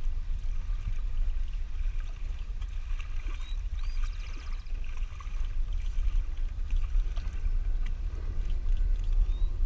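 Kayak moving over river water: water lapping and splashing against the hull close to the microphone, with a heavy low rumble underneath. Short high rising chirps sound twice, about three and a half seconds in and near the end.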